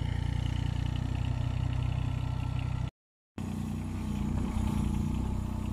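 Excavator's diesel engine running steadily, with a brief dropout to silence about three seconds in.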